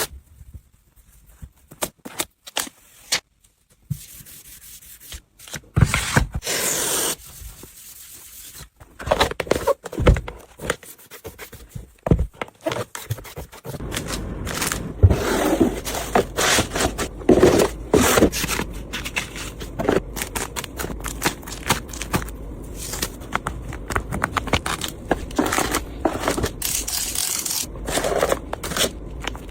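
Phone packaging being handled during an unboxing: cardboard and plastic rubbed, scraped and torn, with many small clicks and taps. The handling is sparse with quiet gaps at first, then denser and more continuous from about halfway through.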